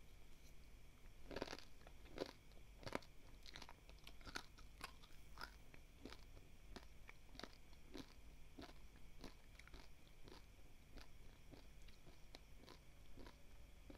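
A person chewing a mouthful of dry, uncooked basmati rice grains, the hard grains crunching between the teeth. A quick run of sharp crunches comes over the first few seconds, then slower, fainter crunches about twice a second as the chewing goes on.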